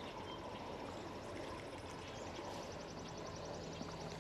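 Quiet lakeside ambience: faint water noise with a few short high chirps early on and a quick run of fine ticks in the middle.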